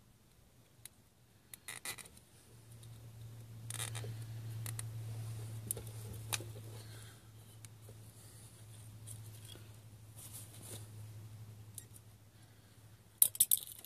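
Zip ties being pulled tight around the wires of a spa air blower motor: scattered small scratchy clicks and rasps, with a sharp cluster of clicks near the end. A low steady hum sounds behind for most of the clip.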